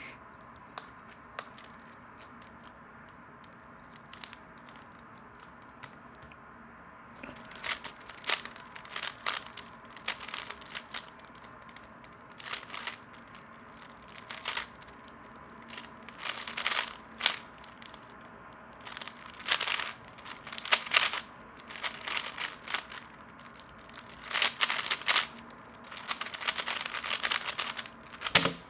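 3x3 speedcube being turned fast during a timed solve: bursts of rapid plastic clicking from layer turns, broken by short pauses, starting about seven seconds in after a quiet stretch.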